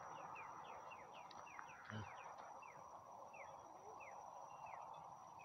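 Faint bird calls: a run of short notes that each slide downward, two or three a second, over a steady outdoor hiss, with one soft knock about two seconds in.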